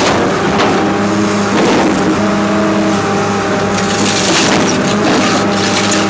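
Excavator's diesel engine running steadily under load, its pitch shifting slightly as the hydraulics work, with several short bursts of the bucket scraping and crunching through soil and wrecked car metal.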